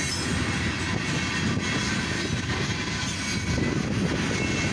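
Freight train cars, including an old Chessie System boxcar, rolling past on the main line with a steady rumble of wheels on rail.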